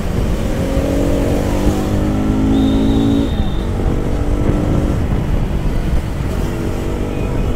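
Bajaj Pulsar NS200's single-cylinder engine running while riding in traffic, over wind and road rumble. The engine note holds, drops off sharply about three seconds in, and comes back more faintly.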